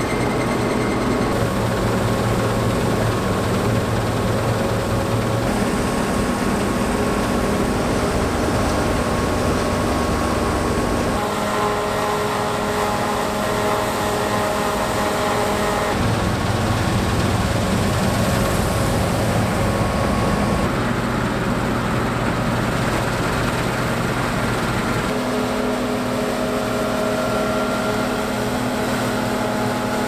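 Claas Trion 720 combine harvester running under load while cutting winter barley: a steady drone of its Cummins engine and threshing machinery with several steady whining tones. The mix of tones changes suddenly several times, about every five seconds.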